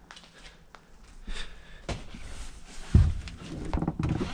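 Hard plastic interior trim panel being forced into place by hand: scattered plastic clicks, creaks and rustling, with a heavy thump about three seconds in as it is pushed home.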